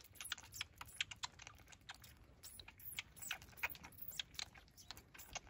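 Baby vervet monkeys suckling milk from bottle teats fixed to the wire of a feeding cage: faint, irregular quick clicks and smacks, several a second.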